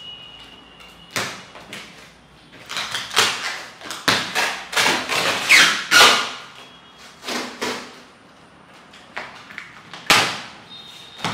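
A cardboard carton being unpacked: a string of ripping and scraping noises as packing straps and tape are cut and pulled off the box, loudest in the middle, with one more sharp rip near the end.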